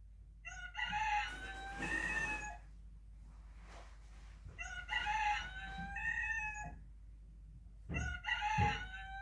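A recording of a rooster crowing, played back: three long cock-a-doodle-doo crows of about two seconds each, spaced a couple of seconds apart.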